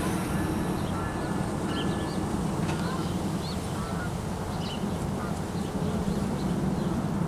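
NJ Transit push-pull commuter train standing at a station platform with its locomotive idling: a steady low hum. Short bird calls sound here and there over it.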